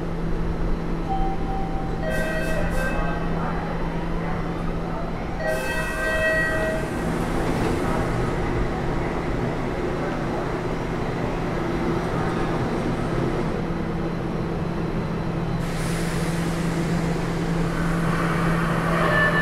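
MBTA Orange Line subway train with its motor starting up and running with a steady hum under an underground platform's noise. Two short tones sound about 2 and 6 seconds in, and a faint rising whine follows.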